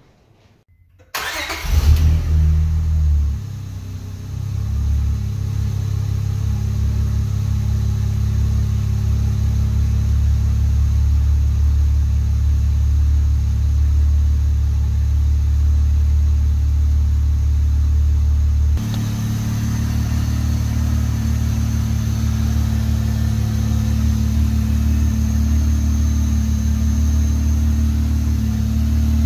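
Acura V6 engine with a swapped-in 70 mm B-series throttle body comes in about a second in and flares briefly. It then settles into a steady idle.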